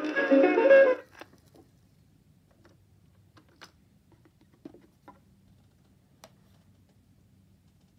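Guitar music from a record playing through the small mono speaker of a 1974 Zenith battery-operated record player, cut off abruptly about a second in as the volume knob is turned to off. A few faint clicks and light knocks follow as the record is lifted off the turntable.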